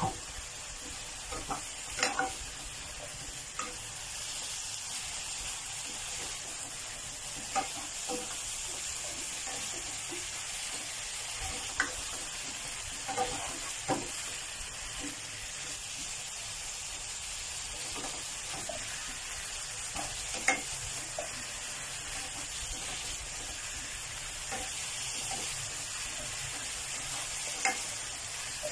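Chicken breast and cucumber pieces sizzling steadily as they are stir-fried in a pan, with a spatula now and then scraping and knocking sharply against the pan as the food is turned.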